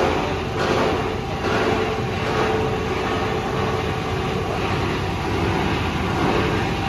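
Scrap copper wire granulator running, chopping scrap cable into granules: a dense, steady grinding din over a constant hum, with a few sharper knocks in the first second or so.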